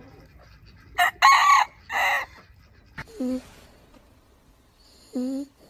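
Chicken calls: three loud, short squawks between one and two seconds in, then two shorter clucks with a falling pitch, about three and five seconds in.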